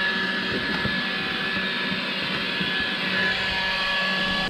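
Cordless stick vacuum cleaner running steadily with a high whine as its floor nozzle is worked over the carpeted floor of a van cab. It switches off right at the end.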